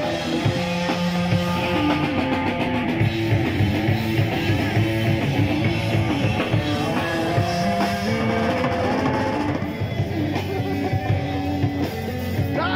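Live rock band playing an instrumental passage without singing: amplified electric guitars and bass guitar over a drum kit.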